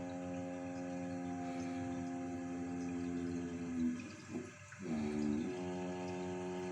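Toilet cistern humming while it flushes: a steady pitched hum over running water. The hum breaks off for about a second around four seconds in, then starts again, sliding briefly down in pitch before it settles.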